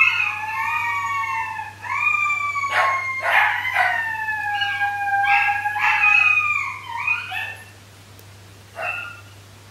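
Three 13-week-old Shetland Sheepdog puppies howling together, several long, falling howls overlapping at different pitches, with short yips mixed in midway. The chorus dies away near the end, with one last short yip. The owner takes it as the pups calling for their pack after one felt alone.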